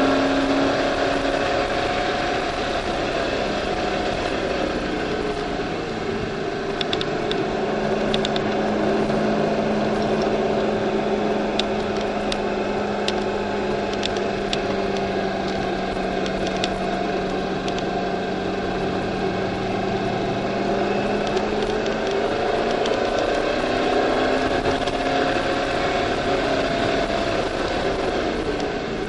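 C5 Corvette Z06's LS6 V8, heard from inside the cabin at speed on a race track. The engine note drops near the start, holds a nearly steady pitch through the middle, and climbs again near the end. A few light clicks sound around the middle.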